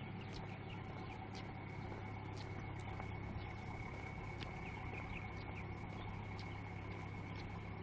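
Harbour ambience: a steady low hum and a constant high thin tone, with scattered faint short chirps and clicks over it.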